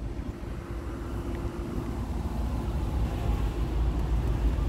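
A car engine idling: a steady low rumble with a faint steady hum above it, growing a little louder toward the end.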